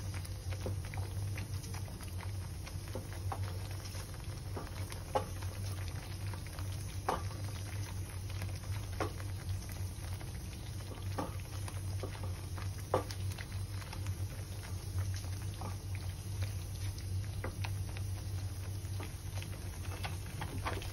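Thick tomato-onion masala bubbling and spluttering in a steel kadhai as it is sautéed and stirred, with irregular soft pops a few times a second. A steady low hum runs underneath.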